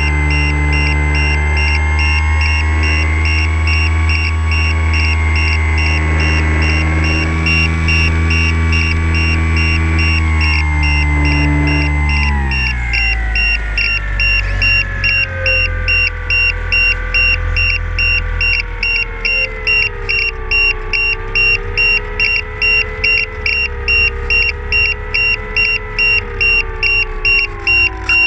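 RC model airplane's motor and propeller heard from a camera on the plane: a steady drone at high throttle, then about twelve seconds in the throttle is pulled back and the pitch falls in steps to a lower, wavering note as the plane glides in to land.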